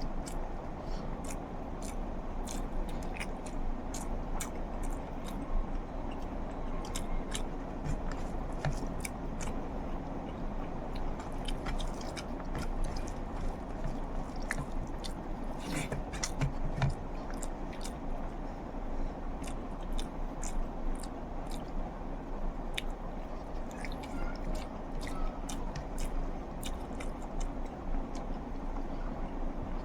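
A person eating egg curry close to the microphone: wet chewing and mouth sounds, with many small clicks and smacks throughout.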